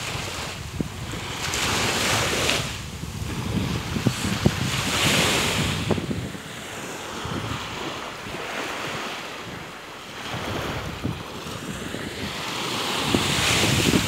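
Low sea waves breaking and washing up a sandy shore, swelling and fading in repeated surges, with wind rumbling on the microphone.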